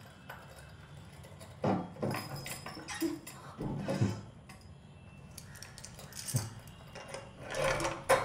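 A wooden wardrobe door and the things inside it being handled: a few short knocks and clinks spread out, with a cluster near the end.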